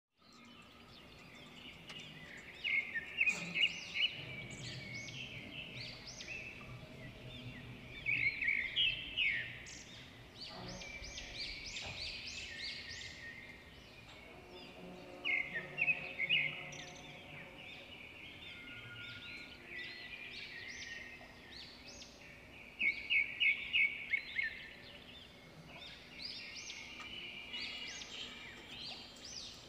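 Birds chirping and calling: many short high calls throughout, with a cluster of loud, rapidly repeated notes every several seconds, over a faint steady hum.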